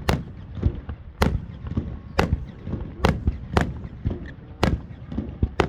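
Aerial fireworks shells bursting in quick succession: seven loud bangs, roughly one a second, with fainter pops between them.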